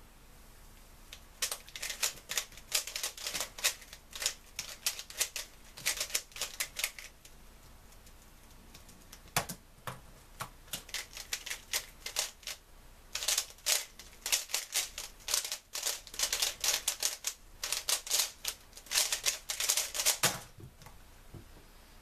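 Fast, dense clicking and clacking of a 3x3 speedcube's layers being turned, in rapid runs broken by short pauses. The turning stops with a low thump about two seconds before the end.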